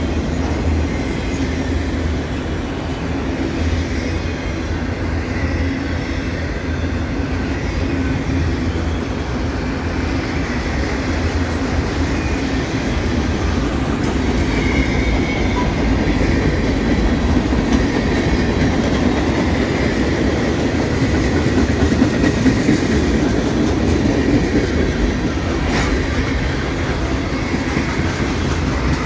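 Freight cars of a Norfolk Southern manifest train rolling steadily past close by: the continuous rumble of steel wheels running on the rails.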